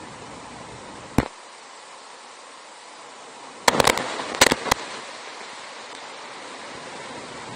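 Raindrops striking the camera's waterproof housing as loud, sharp taps: one about a second in, then a quick cluster of several near the middle. Under them, the steady rush of the mountain stream.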